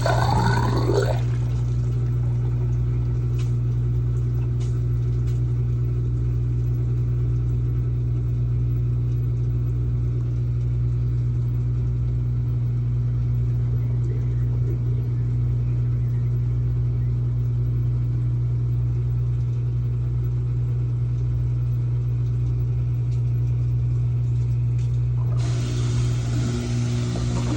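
Washing machine drain pump running with a steady low hum as it pumps water out into a wall drain that is backing up and overflowing.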